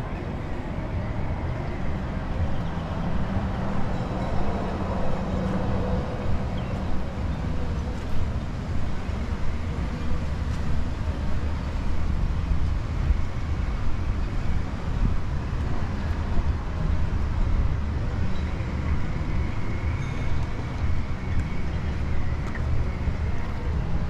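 Steady low rumble of outdoor city ambience with traffic noise.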